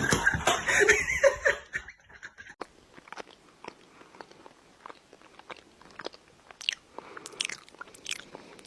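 A pet chewing and crunching food, with many short, sharp, irregular crunches. A louder, noisier stretch fills about the first two seconds.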